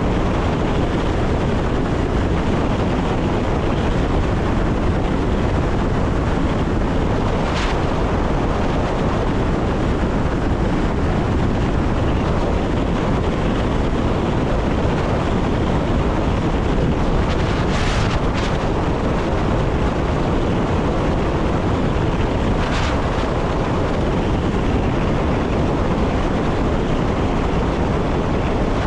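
Electric passenger train running along the line, a steady rumble of wheels on rails mixed with wind noise. Four short hisses cut through it.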